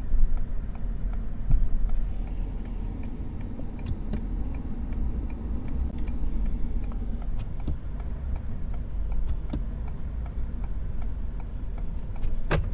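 Pickup truck engine running with a steady low rumble, with faint light ticks scattered throughout and a sharper click near the end.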